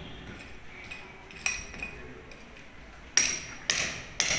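Hammer striking a steel chisel to break out brickwork, each blow a sharp metallic clink with a bright ring. One lone strike comes a little before halfway, then from about three seconds in a steady run of blows about two a second.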